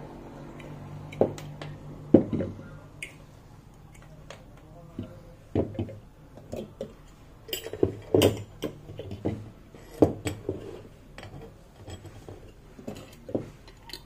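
Small metal electric disc horns being picked up, knocked together and set down on a wooden tabletop, with test-lead clips handled: a run of irregular clacks and knocks.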